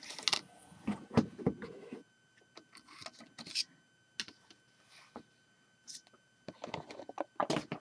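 Handling noise: scattered light clicks and knocks, busiest in the first two seconds and again near the end.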